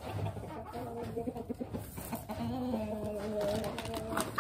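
Bantam chickens clucking in low calls, with one longer, drawn-out call in the second half and a few short clicks.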